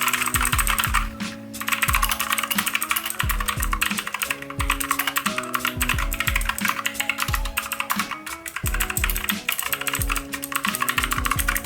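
Rapid typing on a mechanical keyboard with clicky Kailh Blue switches: a dense, continuous patter of sharp key clicks, with a brief pause about a second in.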